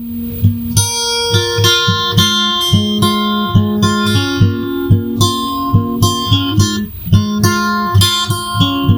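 Acoustic guitar strummed in a steady rhythm as an instrumental intro, with a low thump on each beat and a short break about seven seconds in.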